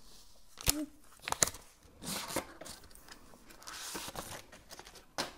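Cardboard and paper packaging of a new Kindle e-reader being handled and opened. A few sharp snaps and clicks are interspersed with soft rustling and sliding of paper.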